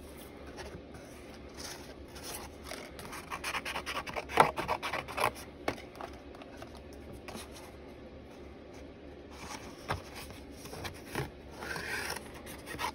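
Watercolour paper being handled and shuffled over a cutting mat, with short snips and clicks of scissors at the paper's edge. The sharpest clicks come about four to five seconds in.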